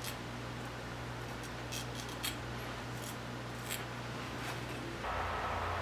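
Hand-forged 1084 carbon-steel straight razor scraping stubble in short, scattered strokes, faint over a steady low hum. A steady rushing noise starts just before the end.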